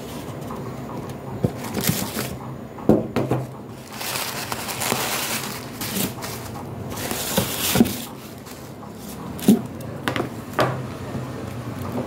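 Tissue paper rustling and a cardboard shoebox being handled as sandals are unwrapped, with two longer stretches of rustling in the middle and several sharp knocks and taps.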